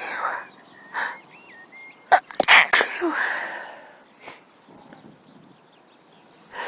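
A woman sneezing in a fit: a small sneeze about a second in, then a loud run of sneezes about two seconds in, followed by smaller sneezes and breaths. She puts the sneezing down to her cold, or perhaps a mild tree-pollen allergy.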